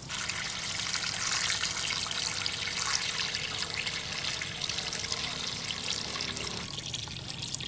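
Water running from a hose into a large aluminium pot and splashing onto the cow head pieces inside. It falls away about seven seconds in.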